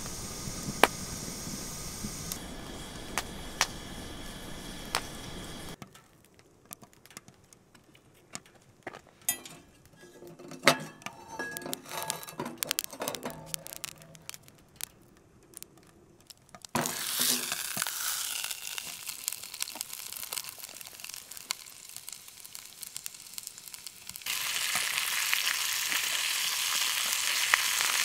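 Wood fire crackling in a stainless-steel camp stove, then a quieter stretch of scattered clicks and knocks. After that a steady sizzle begins and turns louder for the last few seconds: a thick steak searing in a cast iron skillet.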